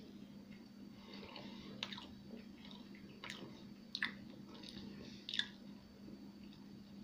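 A person chewing mouthfuls of homemade banana sponge cake with walnuts, with a few sharp clicks, the loudest two near the middle. A faint steady hum runs underneath.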